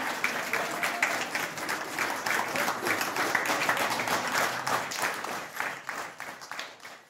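Crowd applauding with dense clapping that fades away toward the end.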